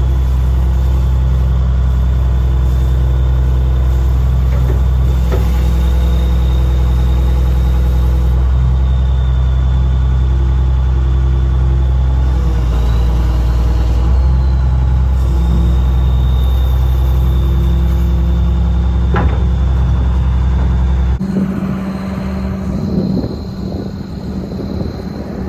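Excavator's diesel engine running steadily, a deep even drone with a thin high whine above it. About 21 seconds in the sound changes abruptly, the deepest part of the drone dropping away and leaving a rougher, quieter engine sound.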